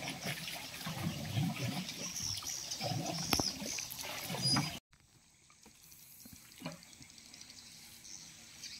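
River water slapping and gurgling irregularly against a small wooden boat's hull. It cuts off abruptly about halfway through, leaving a much quieter river ambience with a few light clicks.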